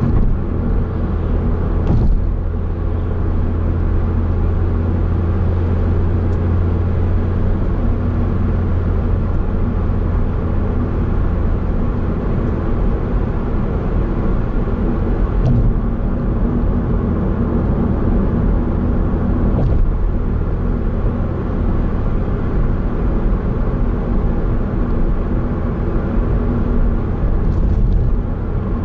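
Steady low road and engine noise of a car cruising at speed, heard from inside the cabin, with a few faint brief clicks.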